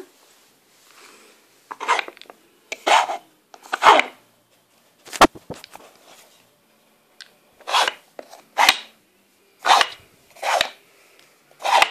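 Plastic blocks of a Nina Ottosson Dog Brick puzzle board being slid and set back as treats are loaded: a series of short scrapes about a second apart, with one sharp knock about five seconds in.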